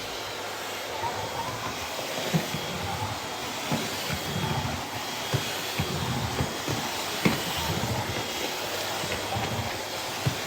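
Vacuum cleaner running steadily: a rushing hiss with a faint high whine, broken by irregular low knocks and rattles.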